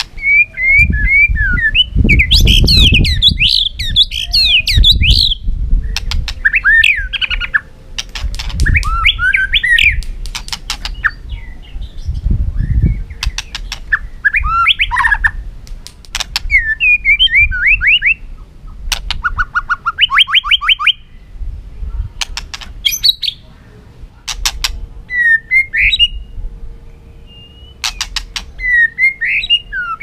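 White-rumped shama singing a varied song of rich whistled phrases and rapid trills, with sharp clicks between some phrases and a low rumble in the first few seconds.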